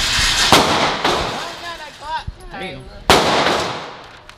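Two shots from a 9mm Glock 17 pistol about two and a half seconds apart, each followed by a long ringing echo. Faint voices come in between the shots.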